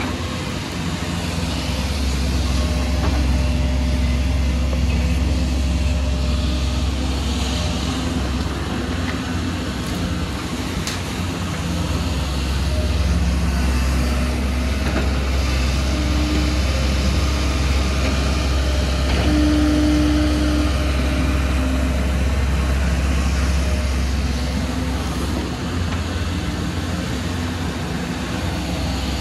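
Diesel engines of hydraulic excavators running under load while digging, a steady low drone that swells a little a few seconds in and again past the middle. A brief higher steady tone sounds twice in the second half.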